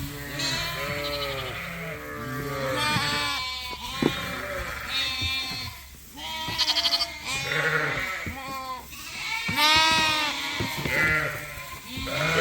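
A flock of ewes and lambs bleating continuously, many calls overlapping at different pitches, as lambs search for their mothers in a newly merged group. A single sharp click about four seconds in.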